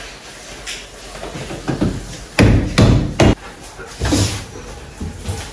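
A quick run of three or four loud knocks and thuds about two and a half to three and a half seconds in, then another thud a little after four seconds: kitchen goods being handled and set down on a counter.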